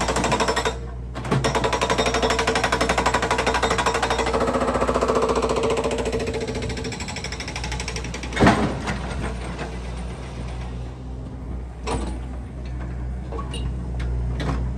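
Hydraulic breaker on a Yanmar mini excavator hammering concrete in a fast, steady rattle, which fades out past the middle. A low machine hum carries on after it, broken by two loud clunks, one about eight seconds in and another about four seconds later.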